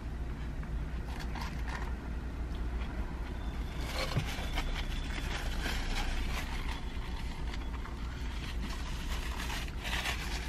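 Eating sounds: chewing, with a plastic fork clicking and scraping in a plastic takeout bowl. Near the end a paper napkin rustles. A steady low hum of the car cabin runs underneath.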